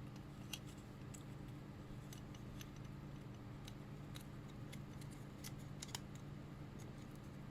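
Light irregular clicks and taps of small parts and tools being handled on a workbench, loudest about half a second in and near six seconds, over a steady low hum.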